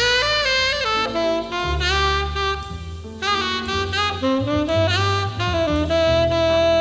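Jazz combo playing: a horn carries a melodic line of quickly changing notes over a bass line and drum kit.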